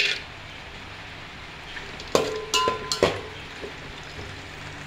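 Cashews frying in hot ghee in a metal pot, a steady sizzle just after they are tipped in. About two seconds in, a metal spoon stirs them, clinking and scraping against the pot several times with a ringing tone.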